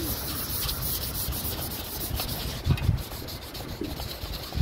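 Sanding a car body panel: a steady scrubbing, with two dull knocks about two and a half seconds in.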